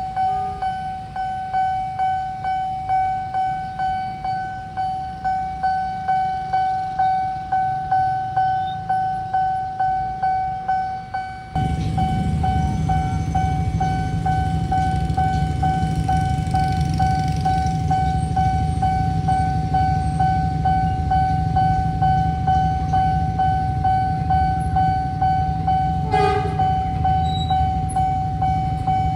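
Railway level-crossing warning alarm: a steady electronic tone pulsing about twice a second. About halfway through, a loud low rumble joins it, a train running through the crossing.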